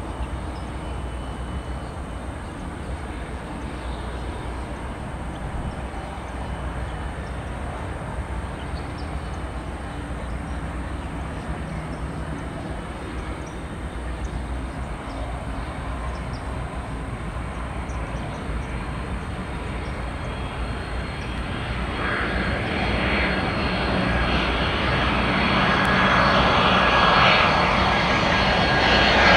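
Jet airliner engines: a steady distant rumble that grows steadily louder over the last third as the jet comes closer.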